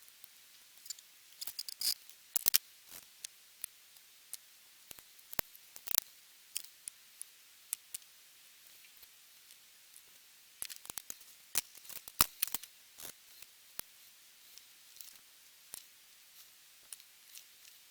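Small plastic model-kit parts being cut and handled at the workbench: irregular sharp clicks and snips, some in quick clusters.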